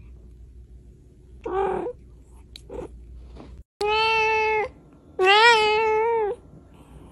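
A cat meowing: a short meow about one and a half seconds in, then two long, drawn-out meows, the second louder and wavering in pitch.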